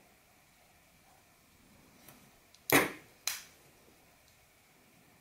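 Ganzo carbon-fibre folding knife being snapped open: two sharp clicks about half a second apart, the first the louder, as the blade swings out and locks.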